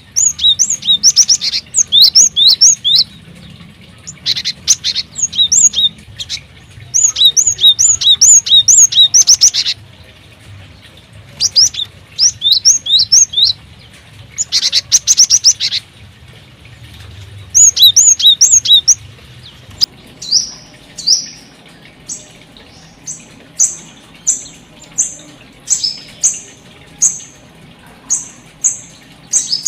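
Small aviary birds chirping: quick runs of high, sweeping chirps lasting a second or two each, then, about two-thirds of the way in, single short high calls about once a second.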